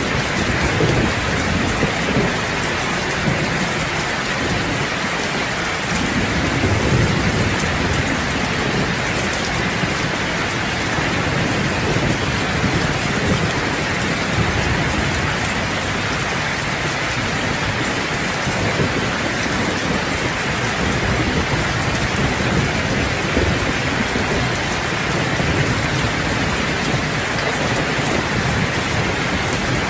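Heavy rain falling steadily on a roof, a dense even hiss, with low rumbles of thunder rising and fading underneath.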